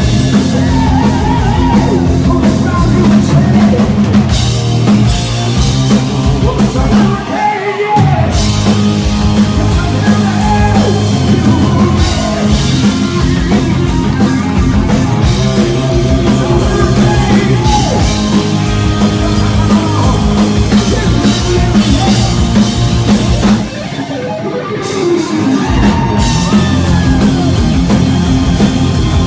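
Hard rock band playing live: electric guitars, bass and a drum kit. The bass and drums drop out briefly twice, about a quarter of the way in and again about four-fifths in.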